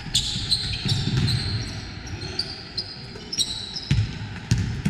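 Basketball bouncing on the court during play, a few low thuds, mixed with many short high-pitched sneaker squeaks on the floor.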